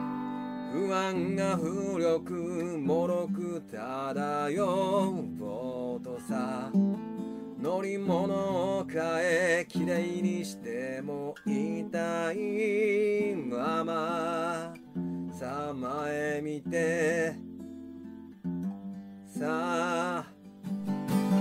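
Background music: strummed acoustic guitar chords under a wavering melody line that comes in short phrases.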